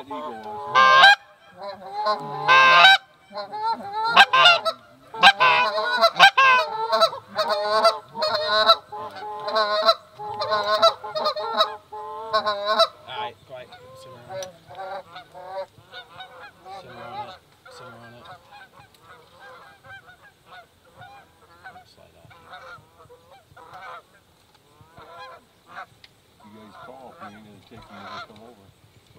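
Canada goose honks and clucks, many in quick succession: loud and crowded for roughly the first dozen seconds, then fainter and more scattered.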